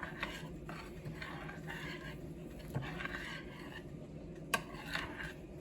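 A spoon stirring instant mashed potato flakes and hot water in a pan: soft, irregular scraping and squishing, with a couple of light knocks against the pan.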